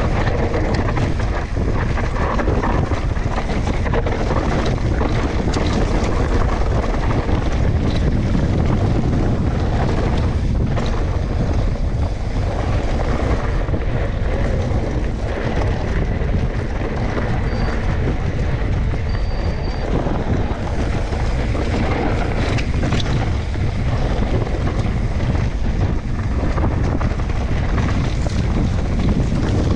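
Heavy, steady wind noise buffeting the microphone, a rough low rush with no clear engine tone.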